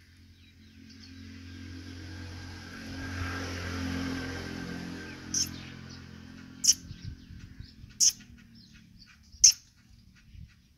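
A motor vehicle passes, its engine sound swelling to a peak about four seconds in and then fading. From about halfway there is a series of five short, sharp chirps about every second and a half, the loudest near the end, with fainter small chirps between them.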